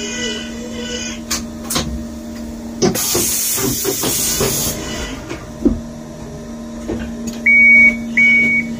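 Mazak Integrex 200 SY CNC turning center running with a steady hum, with a couple of clicks and a hiss lasting about two seconds in the middle. Near the end come three loud, high beeps, each about half a second long.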